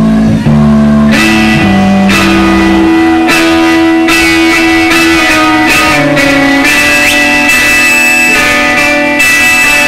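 Electric guitar played alone through an amplifier, mostly loud, sustained distorted notes and chords that ring out and change every second or two, with a strum roughly every second. No drums or vocals come in.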